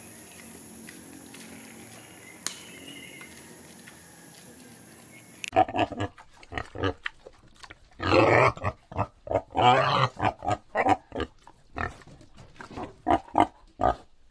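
Wild boar grunting: a quick run of short grunts, several a second, with two longer, louder grunts near the middle. Before the grunting begins, about five seconds hold only a faint, steady hiss with a thin high whine.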